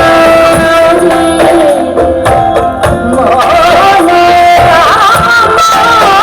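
Background music: a sliding, ornamented melody over held tones, with a steady beat of low percussion strokes.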